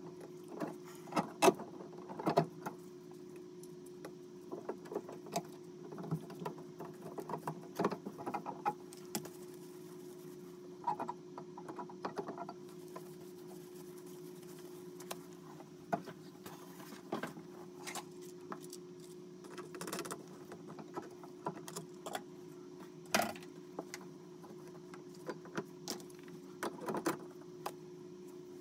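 Scattered clicks, taps and light knocks of hand work on a shower valve and its copper pipes inside a wall opening, over a steady low hum.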